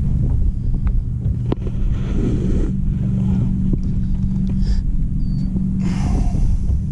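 A boat motor running with a steady low hum and rumble. Two brief hissing rushes come through, about two seconds in and again near the end.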